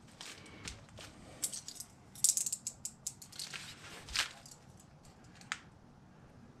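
A run of sharp, ratchet-like clicks and scrapes from hand work with a razor knife and straight edge on a sheet of EVA foam flooring. The clicks are thickest about two seconds in, with another loud click about four seconds in.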